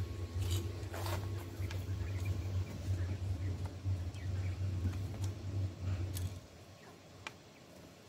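Quail pecking feed from a plastic trough feeder: scattered light, sharp ticks over a low steady hum that stops about six seconds in.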